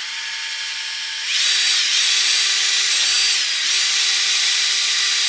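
Makita cordless drill spinning a wire brush against the engine block, scouring the metal around a crack to roughen it for an epoxy repair. It spins up, then gets louder about a second in as the brush bites into the metal, with a brief dip a little after halfway.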